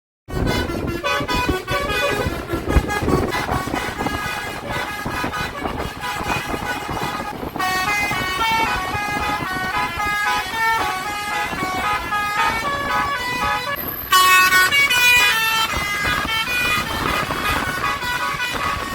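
Telolet basuri multi-tone bus horn playing quick stepped melodies over engine and road noise. The sound changes abruptly about seven and a half seconds in and again about fourteen seconds in, where the horn becomes louder.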